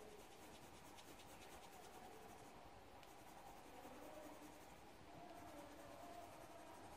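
Faint scratching of a colored pencil being rubbed back and forth on paper while colouring in.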